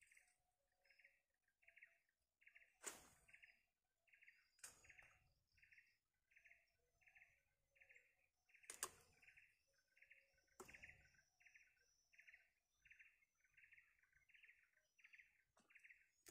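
Faint bird call, one short note repeated steadily about twice a second, with four sharp knocks or clicks scattered through it.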